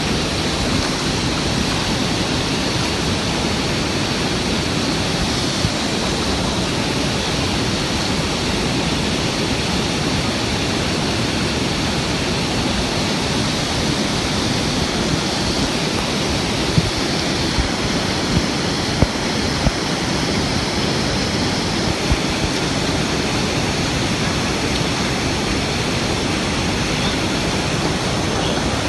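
Waterfall rushing, a dense steady roar of falling water. A few brief low bumps come a little past halfway.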